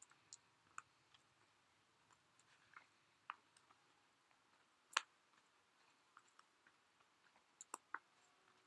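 Near silence with sporadic faint clicks and ticks, one sharper click about five seconds in.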